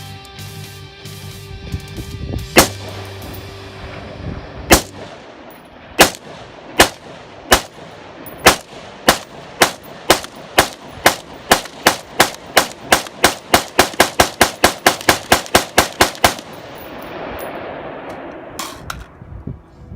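Firearm shots at the range. Single shots come about a second apart, then a fast string of about two dozen that quickens and stops abruptly, with two more near the end.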